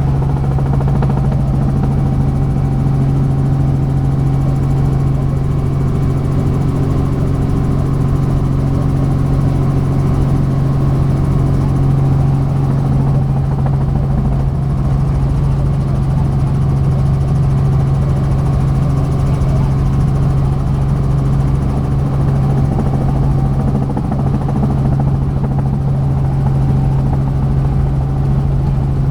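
Helicopter in flight: a loud, steady drone of rotor and turbine with a constant low hum.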